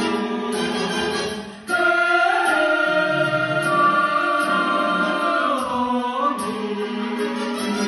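Vocal group singing a Moldovan folk carol in harmony with the orchestra. About a second and a half in, the sound breaks off briefly, then a long chord is held and slides down near the end.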